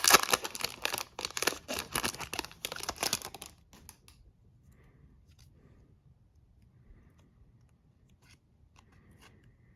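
Hockey card pack wrapper and cards being handled: dense crinkling and tearing for about three and a half seconds, then only faint light ticks.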